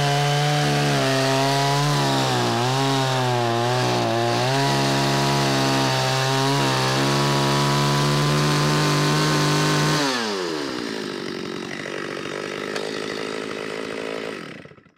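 Gas chainsaw at full throttle cutting down through a log, its pitch sagging briefly a few times under load. About ten seconds in the throttle is released as the cut finishes, and the engine falls to a lower, quieter idle.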